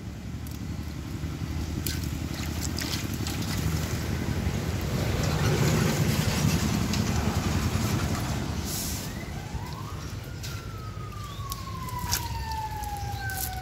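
A passing motor vehicle: a low engine rumble swells to its loudest about halfway through and then fades. From about two-thirds of the way in, a long tone with overtones glides slowly downward, with scattered light clicks throughout.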